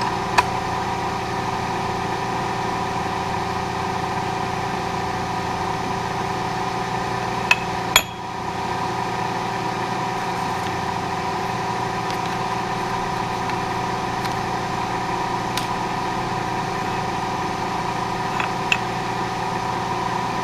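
Milling machine running steadily with an even motor hum, with a few sharp metallic clicks, two close together about eight seconds in and two more near the end.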